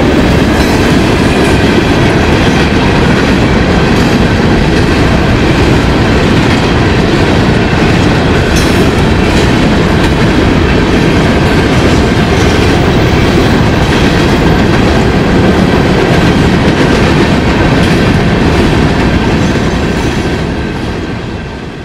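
Union Pacific coal train's open-top coal cars rolling past, a loud steady rumble of steel wheels on the rails, which fades out near the end.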